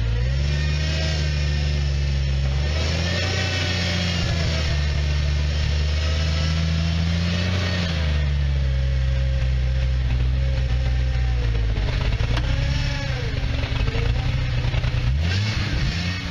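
Off-road vehicle's engine running under load, the revs rising and falling several times, with a drop and quick climb again near the end.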